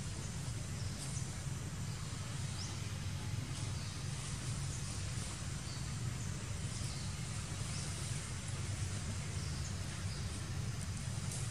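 Outdoor ambience: a steady low rumble with faint, short high chirps now and then.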